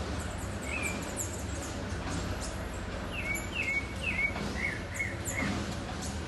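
Wild birds calling: a string of short, falling chirps, about seven between one and five and a half seconds in, over fainter high-pitched twitters. A steady low rumble of background noise runs underneath.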